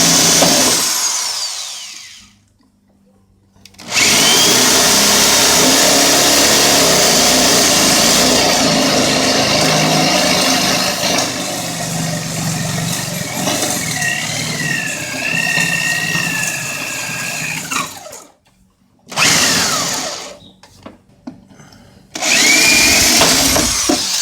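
Electric drill boring through wood, running in spells: it winds down about a second in, runs again for a long stretch with a wavering whine near its end, then starts for short bursts and one more run near the end.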